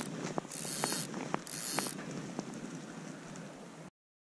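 Spinning reel on a fishing rod being handled and cranked: scattered mechanical clicks with short bursts of hiss. The sound cuts off completely near the end.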